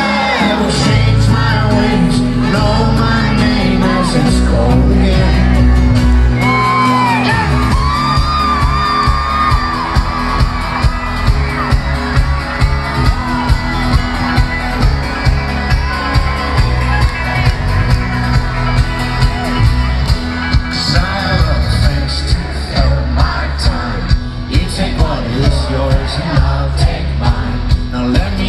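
Folk-rock band playing live through a concert PA, with singing, acoustic guitar and banjo, over an audience shouting and whooping. About ten seconds in, a steady kick-drum beat comes in at about two beats a second.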